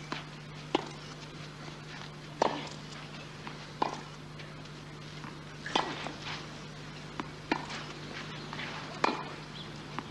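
Tennis ball struck back and forth by rackets in a rally on a clay court: a sharp pock about every one and a half to two seconds, about six strokes in all, with fainter bounces between. A low steady hum runs underneath.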